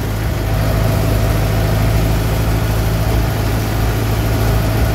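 Tractor engine running steadily, heard from inside the cab while the tractor drives across a field, with an even low drone and no change in pace.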